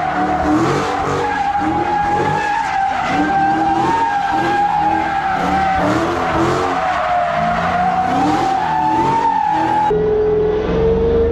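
A drift car's tires squealing continuously as it slides through donuts, with the engine revving up and falling back again and again under the squeal. The squeal drops to a lower pitch near the end.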